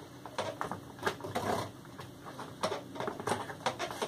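Irregular clicks, taps and rustling from a drone's battery pack and its leads being handled and pressed into the battery tray, with a short scraping stretch about a second and a half in.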